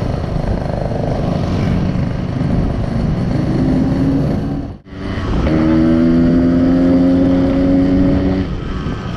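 Yamaha RX-King 135 cc two-stroke single-cylinder motorcycle engine running under way. There is a brief dropout about halfway through, after which the engine pulls with its pitch rising slowly for about three seconds before it eases off.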